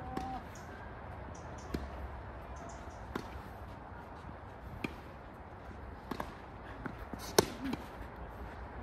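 Tennis rally: the ball struck by rackets and bouncing on the court, sharp pops about every second and a half, the loudest about seven seconds in.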